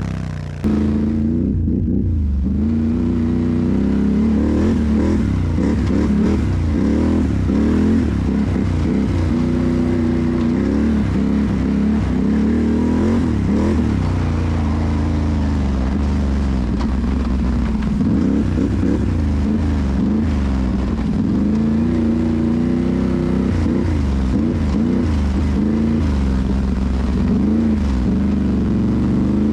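Can-Am Renegade ATV's V-twin engine running under way, its pitch rising and falling continuously as the throttle is worked. There is a brief drop about half a second in.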